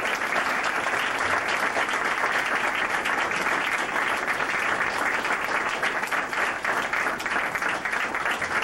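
Audience of diners applauding steadily, a dense patter of many hands clapping.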